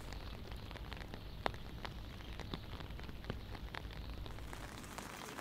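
Light rain: scattered drops ticking close by over a low steady rumble, with one louder tick about one and a half seconds in.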